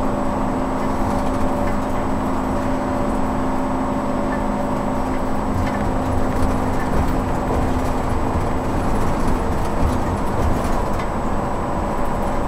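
Steady road drone inside a moving RV at highway speed on a wet road: engine and tyre noise with a constant low hum.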